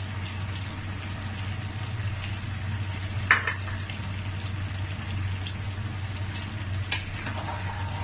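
A pot of plantain porridge bubbling as it is stirred, with a sharp clank of the spoon against the pot a little over three seconds in and a lighter one near seven seconds. A steady low hum runs underneath.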